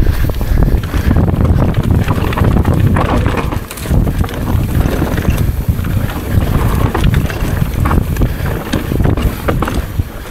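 Wind buffeting the microphone and a downhill mountain bike clattering over rough trail at speed, a loud, continuous rumble with a brief dip about three and a half seconds in.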